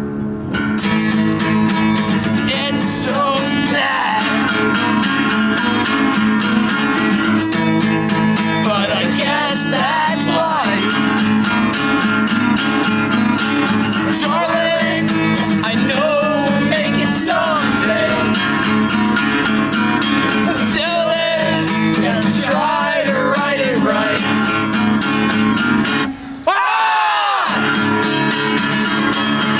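Acoustic guitar strummed steadily while voices sing along. The music drops out for a moment near the end and then comes straight back.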